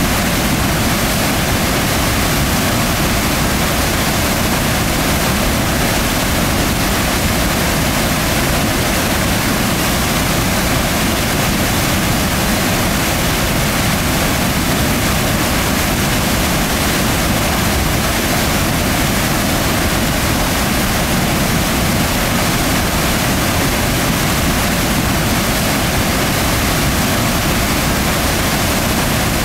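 White water rushing through a narrow rock gorge: a loud, steady wash of noise that does not change.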